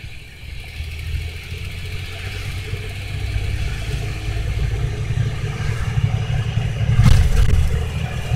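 Car driving, heard from inside the cabin: a low engine and road rumble that grows steadily louder as the car picks up speed, with a brief thump about seven seconds in.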